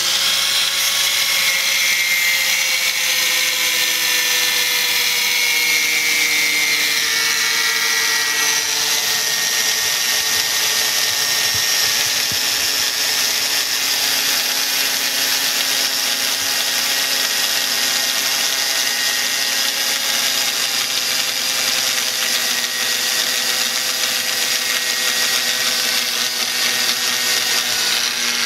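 Small angle grinder running without pause as its disc cuts through the steering-lock housing on a VW Golf MK4's steering column. It gives a steady high whine over the hiss of the disc on metal, and the pitch sags slightly over the first several seconds as the disc bites.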